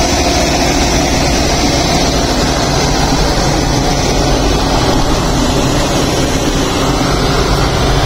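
Car engine idling steadily with the air-conditioning system running while refrigerant is being charged into it.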